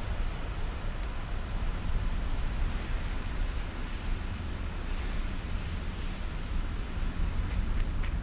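Steady low rumbling sound effect with a hiss above it, even and unbroken.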